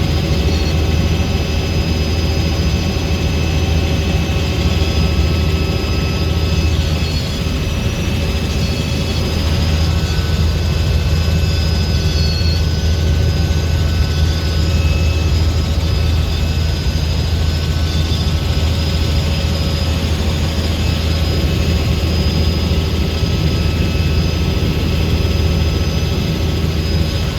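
Helicopter in steady flight: a constant low rotor and engine drone with thin steady whining tones above it.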